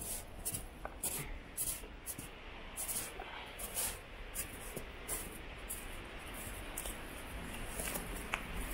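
A person walking through forest undergrowth: short, irregular rustles and swishes of steps and clothing, about two or three a second, growing fainter and sparser about halfway through.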